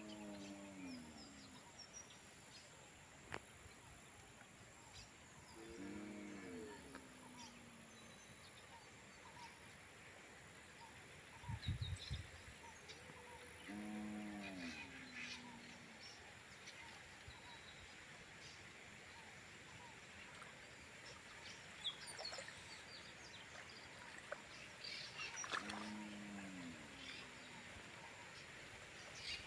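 An animal gives a short, low call that falls in pitch, four times several seconds apart, over a faint steady hiss. Small birds chirp now and then, and a dull thump comes near the middle.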